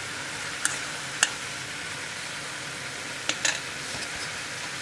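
Chopped chana saag and chana dal sizzling steadily in a kadai on a gas stove, cooked down with very little water left. A few short light clicks and taps sound over the sizzle.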